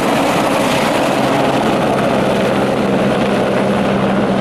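Helicopter running steadily: a continuous turbine tone with a fast rotor flutter, loud and unchanging.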